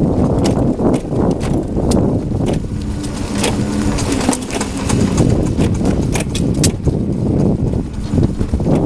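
Pride Celebrity X3 mobility scooter's rear drive section making a banging ticking noise, a quick, uneven run of sharp knocks, over wind rushing on the microphone. The noise comes while the scooter drives on the level or uphill, under load.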